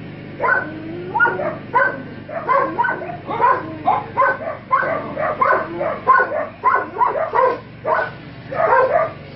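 A dog giving short yelping cries, about two to three a second, with hardly a pause throughout.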